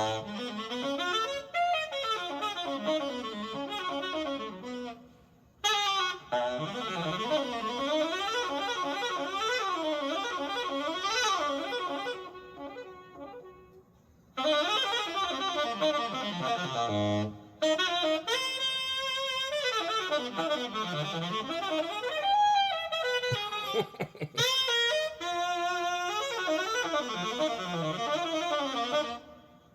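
Unaccompanied tenor saxophone playing fast arpeggio runs that sweep up and down the horn, broken by a few short pauses, with a brief patch of sharp clicks about three-quarters of the way through.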